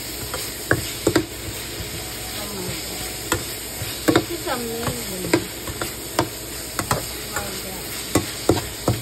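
Ground pork and vegetables sizzling in a frying pan while a spatula stirs them. The spatula scrapes and knocks against the pan at irregular moments, over a steady frying hiss.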